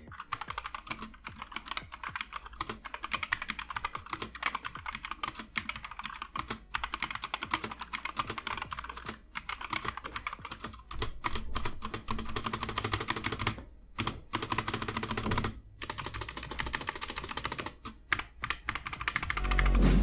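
Fast typing on a Blitzwolf BW-KB2 tenkeyless mechanical keyboard with Gateron Red linear optical switches: a dense run of keystroke clicks, broken by a few brief pauses. The switches sound a little noisy for linears.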